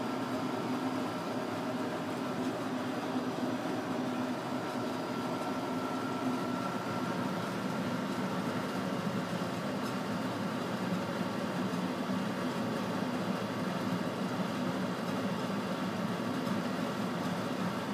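Steady mechanical room hum with a few faint steady tones running through it.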